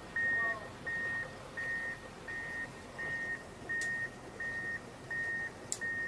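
Vehicle reversing alarm beeping steadily, a single-pitched beep repeating about three times every two seconds, as a vehicle backs down a boat launch ramp.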